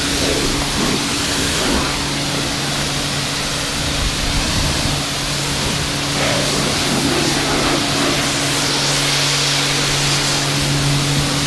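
Kärcher K4 pressure washer running steadily: a low motor hum under the hiss of its lance's water jet spraying the car's bodywork and windows.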